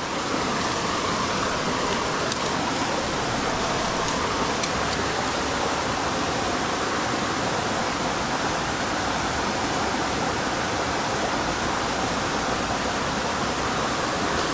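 Steady rush of flowing creek water, an even unbroken noise.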